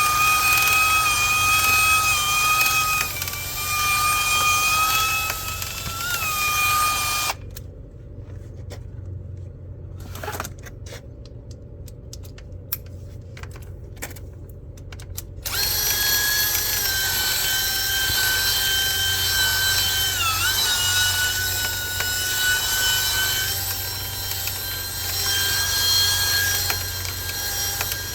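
An electric power tool's motor running with a steady whine during dryer vent cleaning. The whine drops out for several seconds midway, leaving a low hum and scattered clicks, then comes back at a slightly higher pitch.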